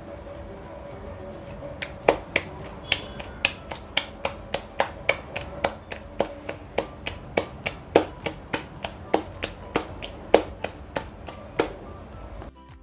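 Wet hands patting a ball of maize-flour dough flat between the palms: a steady run of sharp slaps about three a second, starting about two seconds in and stopping just before the end.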